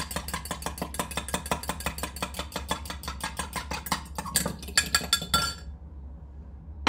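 A metal fork beating an egg yolk and cold water together in a china mug: fast, even clinks of fork against mug, about six a second, stopping about five and a half seconds in.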